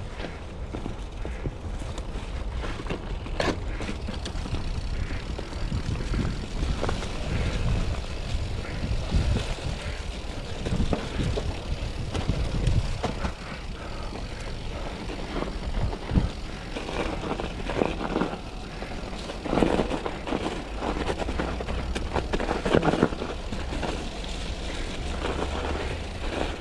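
Mountain bike rolling over snowy, muddy singletrack: tyre and trail noise with wind buffeting the microphone, and scattered knocks and rattles from the bike over bumps.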